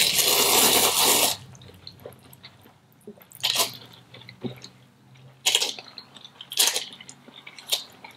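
Close-up mukbang eating sounds of spicy instant noodles: one long slurp of noodles, the loudest sound, lasting about a second and a half at the start, then quieter wet chewing with three shorter slurping bursts.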